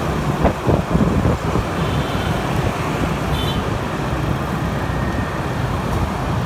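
Steady traffic noise from riding a motor scooter through dense motorbike traffic: engines and road noise, with no single sound standing out.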